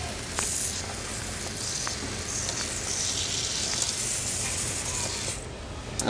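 Hand pump sprayer misting coil cleaner onto an evaporator coil: a hiss in several spurts that stops shortly before the end, over a steady low hum.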